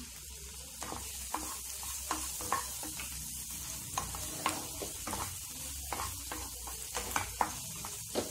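Wooden spatula stirring and scraping chopped onion, tomato and green chillies in a frying pan, a quick run of irregular knocks against the pan over a steady sizzle of frying.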